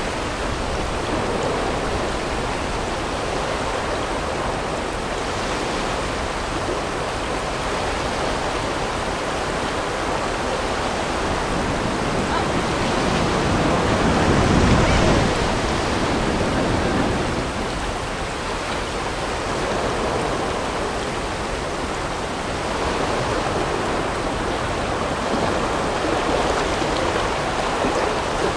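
River water rushing over rocks around an inflatable raft, swelling louder about halfway through as the raft runs past the whitewater of a rapid.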